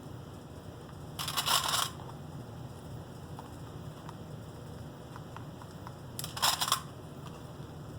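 Two short crackling bursts of handling noise, one near the start and one near the end, as the four stacked cotton fabric pieces are fastened together with pins or clips, over a low steady room hum.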